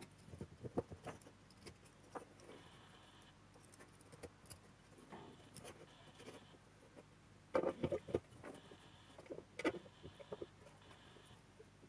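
Hands fitting a wiring harness and its connectors to a metal car heater blower housing: scattered small clicks and light knocks of wire, plug and fingers against the housing, with a louder flurry of knocks for about a second past the middle.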